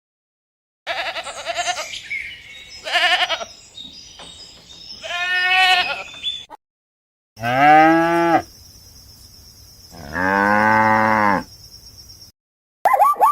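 Farm animals calling in two short clips: first several short bleating calls, then, after a brief break, two long calls of about a second each, the first falling in pitch, with a steady hiss between them.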